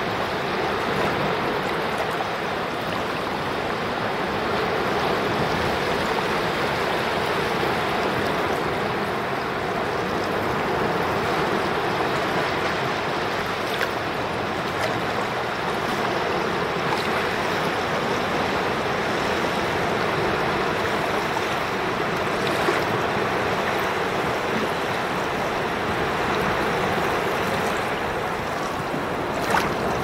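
Small sea waves breaking and washing up over wet sand right at the waterline: a steady rushing, fizzing wash of shallow surf that swells and eases gently every few seconds.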